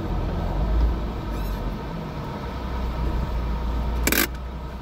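Alfa Romeo 75 engine running at low revs as the car creeps forward, heard from inside the cabin, with a brief harsh rasp near the end.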